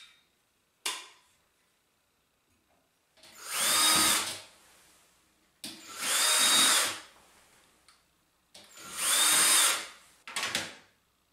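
Power drill run in three short bursts of about a second each, every one spinning up with a rising whine to a steady speed, then two brief blips near the end. A sharp click comes about a second in.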